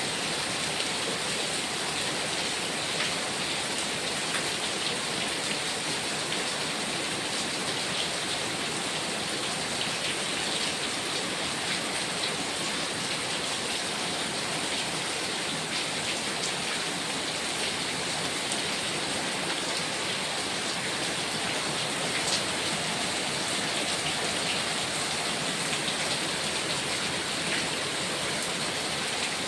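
Heavy rain falling steadily: an even, dense hiss with scattered individual drops ticking through it.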